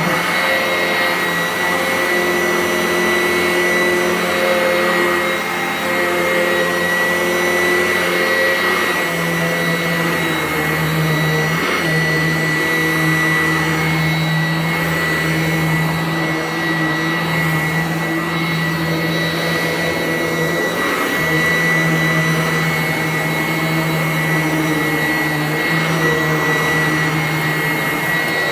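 Sanitaire upright vacuum cleaner running steadily, with a high motor whine over a low drone that shifts in pitch a couple of times as it is pushed over the floor.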